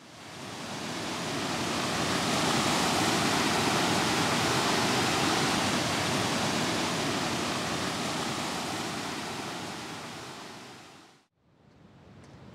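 Rushing stream water, a steady even wash of sound that fades in over the first couple of seconds and fades out near the end.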